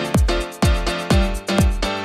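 Background music with a steady kick-drum beat, about two beats a second, over held chords.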